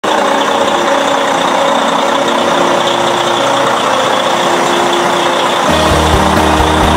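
Semi-truck diesel engines idling steadily. A deeper low rumble with short thumps joins near the end.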